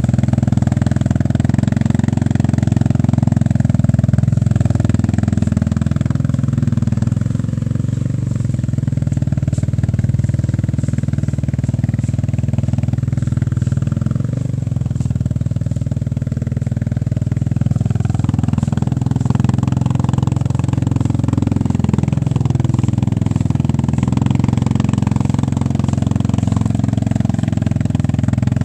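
Yamaha Grizzly ATV's single-cylinder four-stroke engine running under load as the quad wades through a long, flooded mud hole. Its revs rise and fall in the second half.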